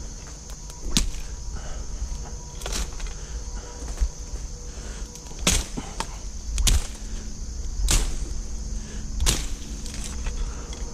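A hand blade swung into brush and briars: about six sharp chopping strokes, a second or two apart, over low rumble from the camera being handled.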